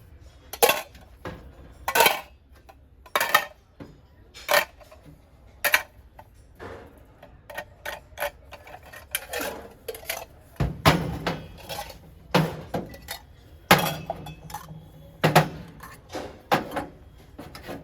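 Brass kitchen vessels being handled and set down, clanking and clinking in a dozen or more irregularly spaced knocks, some ringing briefly.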